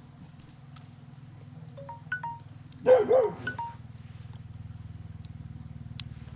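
A dog barks twice about three seconds in, the loudest sound. Around it come short electronic beeps from a fiber-optic fusion splicer: a quick run of rising tones about two seconds in and two more just after the barks, over a steady low hum.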